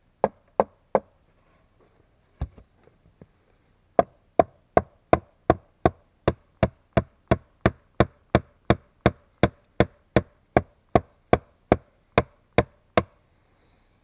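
Hatchet striking wood: a few scattered knocks, then a steady run of some two dozen sharp blows, about three a second, that stops about a second before the end.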